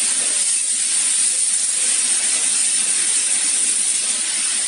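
Steady, even hiss with no change in level and no other sound.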